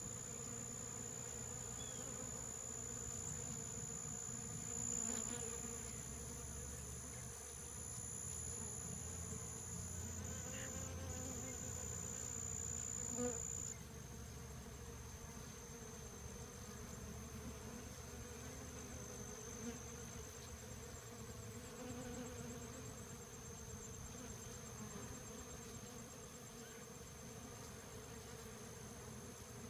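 Honey bees buzzing, a steady hum of wingbeats from many bees at the flowers. A thin, steady high-pitched whine runs above it and drops slightly in pitch about halfway through.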